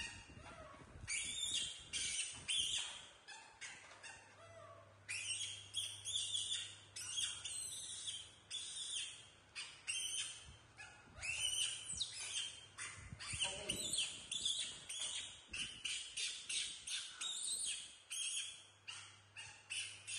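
Baby macaques giving rapid high-pitched squeaks and chirps, several a second, in runs broken by short pauses. A faint low steady hum sits underneath.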